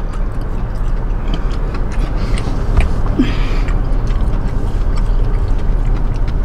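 Steady low rumble of a car running, heard from inside its cabin, with faint, scattered chewing sounds of fried chicken over it.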